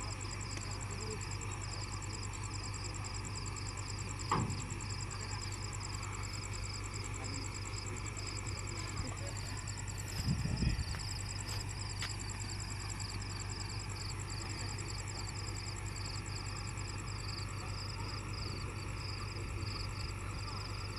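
Railway crane's engine running with a steady low hum under the continuous trilling of night insects. A brief knock comes about four seconds in and a louder thump about ten seconds in.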